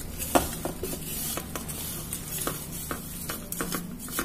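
A spatula scraping and pushing crushed-biscuit crumbs with melted butter off a plate into a cake tin, with a dry rustle of falling crumbs and irregular light taps and clicks of the spatula against the plate and tin.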